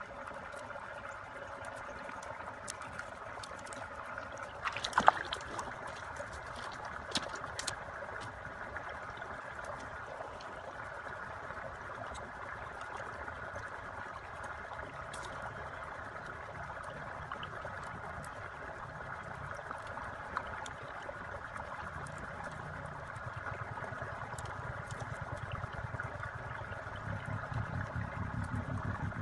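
Split bamboo strips clicking and rustling as they are handled and woven into a fish trap, with a sharp crack about five seconds in and a smaller click near seven seconds, over a steady background noise.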